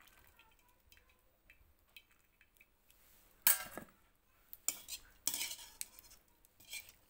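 Wire-mesh skimmer scraping and clanking against a metal kadai while scooping boiled banana-flower strands out of the cooking water. The sharpest clank comes about three and a half seconds in, and several more follow in the last few seconds.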